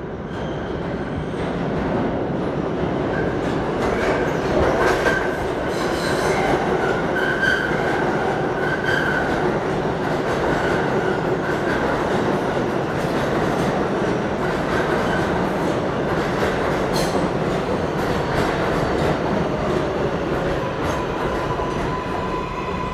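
Kawasaki R188 subway train pulling into the station and braking: a heavy rumble with wheels squealing and clacking over the rail joints, a whine that falls as it slows, and a steady high tone that starts near the end.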